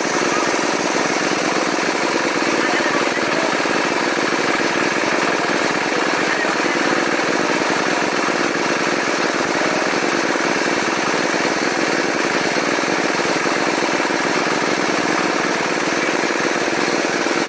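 A small engine running steadily with a continuous rattling clatter.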